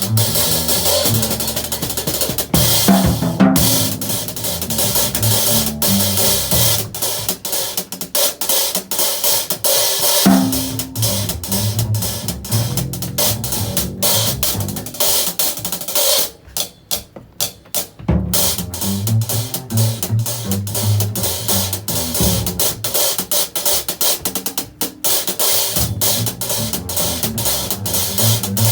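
A live jazz band playing, with the drum kit to the fore: hi-hat and cymbals keeping time over low notes that move in steps. A little past the middle the band stops for about a second and a half of separate sharp hits, then comes back in.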